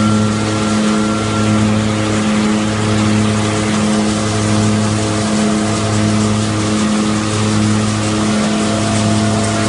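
Önal Makine FPM 1500 hazelnut threshing machine running steadily, driven from a tractor. It makes a loud, even machine drone with a low hum that wavers every second or so, over a dense rushing noise.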